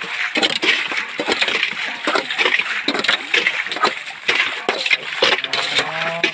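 Muddy water splashing and sloshing as hands scoop and fling mud in a shallow stream, an irregular run of many short splashes.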